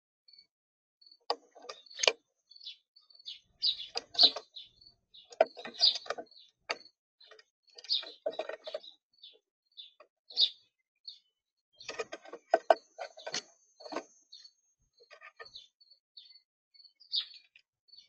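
Small birds at a feeder: a steady series of short, high chirps, about three a second, over a clatter of clicks and knocks as birds peck and land on the feeder, busiest in a few bursts.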